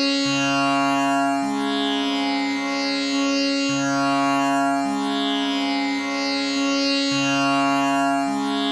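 Tanpura drone tuned to C sharp: its strings are plucked one after another in a slow repeating cycle, each note ringing into the next, so the sound never breaks, with the lowest note changing every second or two.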